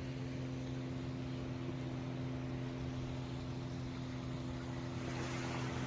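An engine running steadily, a low even hum at a fixed pitch over a wash of noise.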